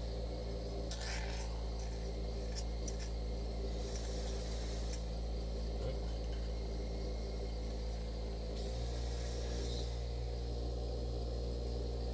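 Cough assist machine running: a steady motor hum that shifts in tone about two-thirds of the way through, with faint air hiss now and then.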